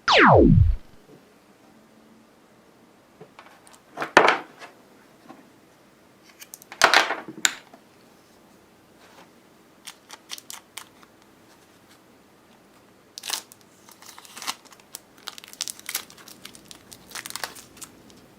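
A fast whoosh falling steeply from high to very low pitch, the loudest sound, then scattered short rustling scrapes every few seconds.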